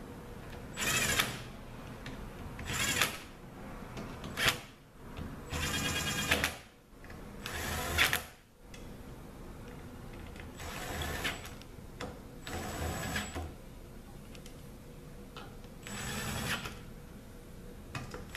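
Cordless drill-driver whirring in about eight short runs, each under a second, as it spins bolts down snug into an aluminium transmission valve body.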